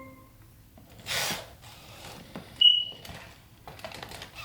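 A brief rustle, then a short, sharp, high-pitched electronic beep from a Sony Aibo ERS-7 robot dog, followed by faint scattered clicks.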